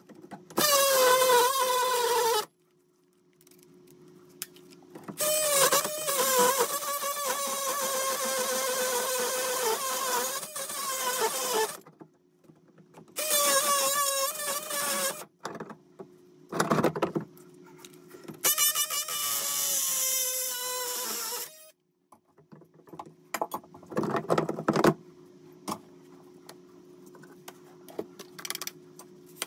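Cordless DeWalt power tool cutting through the copper supply pipes of an old three-handle tub valve, running in about six bursts of a couple of seconds up to seven seconds, its motor whine dropping slightly in pitch as it cuts.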